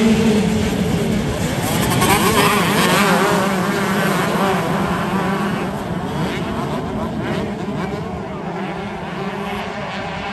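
A pack of 125 cc two-stroke motocross bikes accelerating hard off the start into the first turns, many engines revving and changing pitch at once, slowly fading as the field pulls away.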